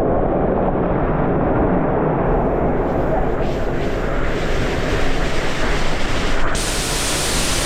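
Loud, steady rush of a waterfall's falling water, turning brighter and hissier about six and a half seconds in.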